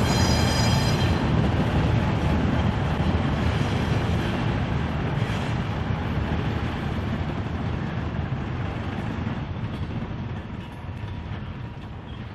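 ALCo S1 switcher and its train of cars rumbling along the track, the sound fading as they move away. A brief high squeal sounds in the first second.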